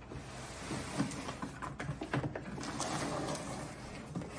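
Rustling and small knocks of cardboard and paper packaging being handled as a box is unpacked.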